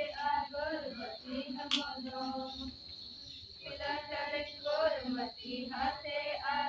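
Women's voices singing together in held, bending phrases, with a short lull about halfway through. A steady high-pitched insect drone runs underneath.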